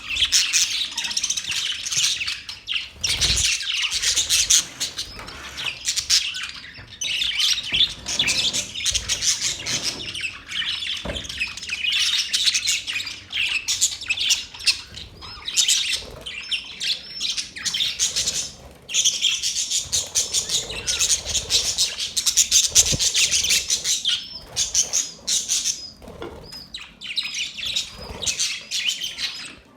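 Budgerigars chattering and warbling, many short chirps and trills packed closely together, with a few brief pauses. A few soft low thumps stand out, about three seconds in, again near the middle and later on.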